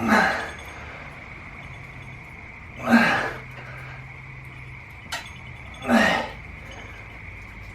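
A man's forceful exhaled breaths, one with each rep of a cable high pull, about every three seconds; a short click between the second and third.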